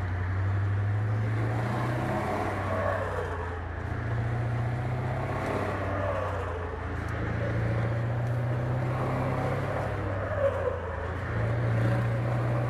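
Scania 144 460 truck's V8 diesel heard from inside the cab while driving, its note rising and falling several times as it pulls away and eases off.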